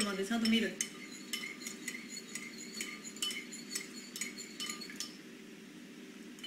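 Metal spoon stirring in a bowl, clinking against its side in a quick run of light clinks that stops about five seconds in.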